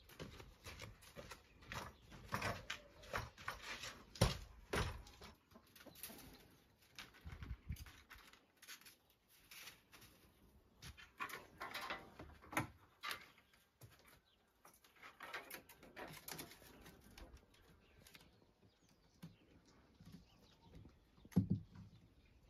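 Irregular knocks, scrapes and creaks of a homemade wooden pole ladder being set against a stone wall and climbed, then rustling as a cord is pulled and tied to the wooden beams overhead.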